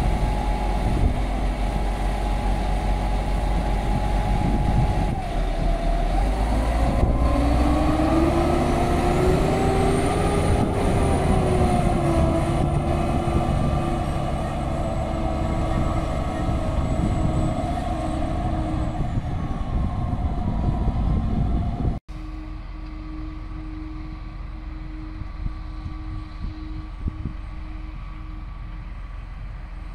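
Heavy vehicle engine running under load. About a third of the way in its pitch rises and holds, like revving up. About two-thirds through, the sound cuts abruptly to a quieter, steady engine hum.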